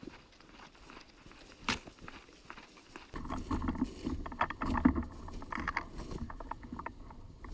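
Rustling and scuffing of a player moving on foot through brush and leaves, starting about three seconds in with a low rumble on the microphone, after a single sharp click about two seconds in.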